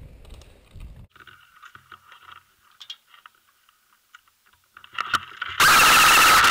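Airsoft electric rifle firing a short full-auto burst close to the microphone near the end, loud enough to distort. It comes just after a couple of single sharp clicks, and before it there are faint clicks and rustling.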